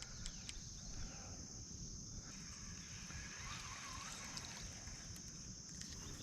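Crickets trilling in a steady high chorus, over a low rumble, with a few faint ticks.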